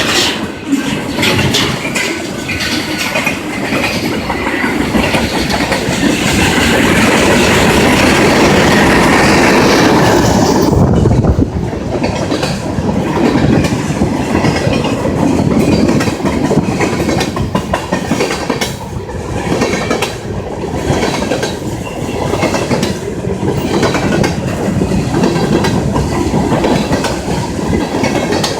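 Norfolk Southern freight train rolling past, its wheels clacking over the rail joints. A brighter, louder rush for the first ten seconds gives way to a lower rumble with repeated clicks as the cars go by.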